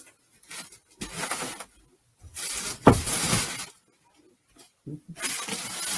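Rustling and handling noise in three bursts as fursuit parts and their packaging are moved about, with a sharp knock about three seconds in.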